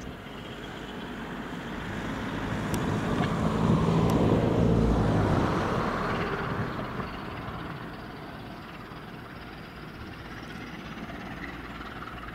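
Pair of English Electric series 1400 diesel locomotives running light, their engine note swelling to its loudest about four seconds in and then easing back to a steady lower drone.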